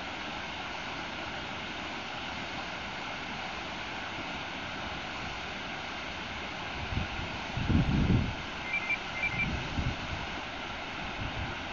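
River water rushing steadily over rocks below a weir spillway, with wind buffeting the microphone in gusts in the second half, loudest about eight seconds in.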